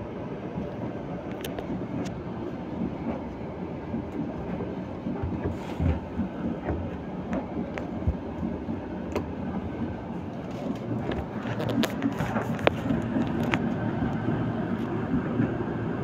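Candy Smart tumble dryer running with an 8 kg load: the steady rumble of the turning drum and tumbling clothes, with scattered light clicks and knocks that come more often in the second half.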